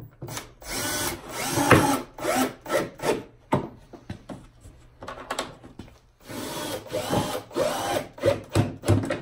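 Cordless drill/driver driving star-drive speed lag screws through a plastic sled into a wooden board. The motor makes two longer runs, one near the start and one about six seconds in, with its pitch sagging and rising under load. Short trigger bursts follow each run as the screws are snugged tight.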